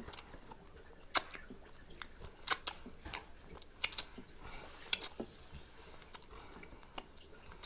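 Wet smacking and sucking of a person licking sauce off their fingers, picked up close by the microphone: several short sharp smacks roughly a second apart.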